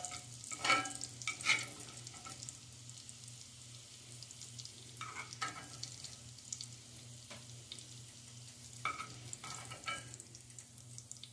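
Onion bits frying in hot bacon fat in a small cast-iron skillet, while a metal slotted spoon scrapes and clinks against the pan as they are scooped out. The clinks are loudest about a second in and come again around the middle and near the end.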